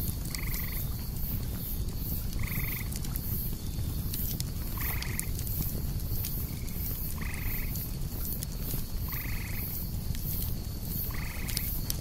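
Campfire crackling with scattered sharp pops, under a steady high cicada drone that pulses about twice a second. A short two-tone call repeats about every two seconds.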